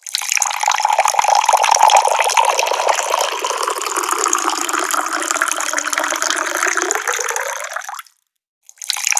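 Water running steadily from a tap and splashing. It stops abruptly about eight seconds in, leaving a half-second gap of silence, then starts again.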